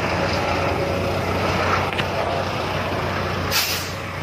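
Fire engine idling close by with a steady low hum, and a short hiss of released air, like an air brake, about three and a half seconds in.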